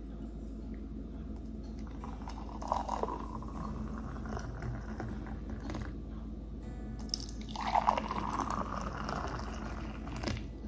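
Filtered fruit-puree drink being poured into a container, twice: a short pour and then a longer one whose pitch rises as the container fills. A steady low hum runs underneath.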